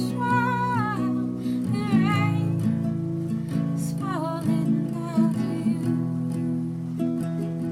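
Acoustic guitar playing sustained chords. For about the first half, a wordless wavering voice sings over it, then the guitar carries on alone.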